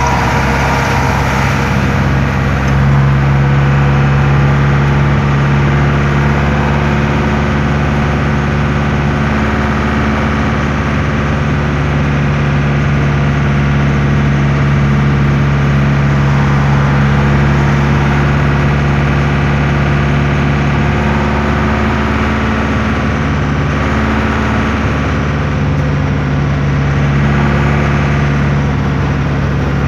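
Air-cooled Deutz F4L912 four-cylinder diesel engine of an Otokar M-2000 minibus running noisily under way, heard from inside the cab. Its note holds steady, with a short dip and recovery about three-quarters of the way through.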